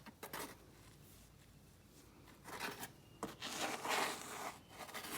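Scuffing and scraping in loose sand as someone scrambles up a sandy slope, in a few rough bursts. The longest and loudest comes a little past the middle.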